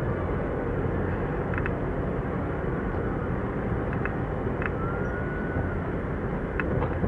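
Steady low rumble of harbour background noise, with a few faint short chirps and, just after the middle, a faint high tone held for about a second.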